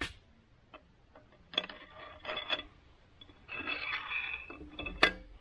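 Metal clinks and scrapes, with a faint ringing, as a cast-iron oil pump and its pickup tube are handled and fitted onto the engine block's main bearing cap. The clinking comes in two short spells, and there is a sharp click about five seconds in.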